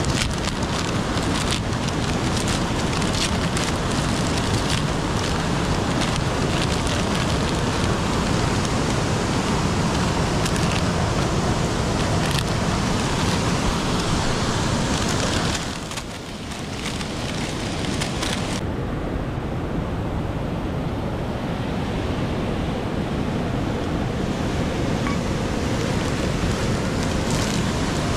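Steady rushing of a cascading mountain stream, with thin crinkles of a plastic noodle packet being handled in the first half. The rush dips briefly about halfway through and sounds duller after that.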